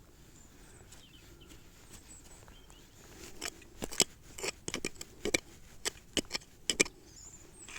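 A metal-detecting digging tool working in soil at the bottom of a hole, giving an irregular run of sharp scraping clicks and knocks through the second half while a deep target is dug out.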